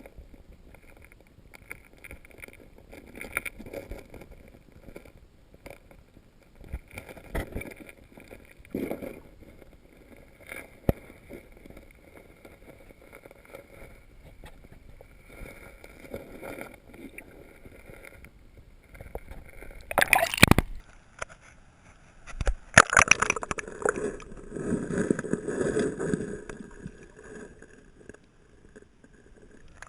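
Muffled gurgling and rushing of a shallow flowing creek heard through a camera held underwater, with scattered knocks. About twenty seconds in comes a loud splashing burst, followed by a few seconds of louder sloshing.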